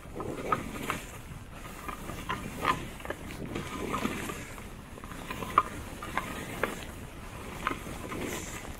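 Wind rushing over a small handheld camera's microphone and skis hissing through deep fresh snow during a downhill run, with irregular light clicks and rubbing from the gloved hand and ski pole grip against the camera.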